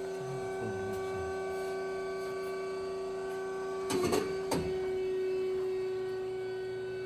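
Amada HA-250W horizontal band saw running with a steady hum. A quick cluster of clicks and a clunk comes about four seconds in, while the controls are worked and the saw head lifts.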